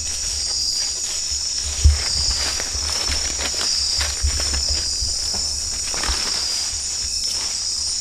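Night-time rainforest insect chorus: a steady, high-pitched trilling of crickets and other insects. Underneath is a low rumble with a soft bump about two seconds in.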